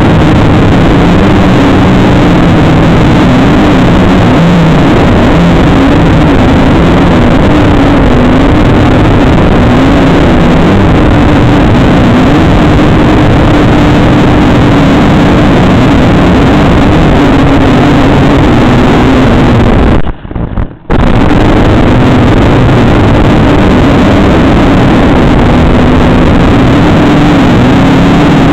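Motors and propellers of an XK X250-A Alien quadcopter, heard loud through its own onboard camera, running steadily in flight with a slightly wavering pitch. The sound cuts out for under a second about twenty seconds in, then comes back.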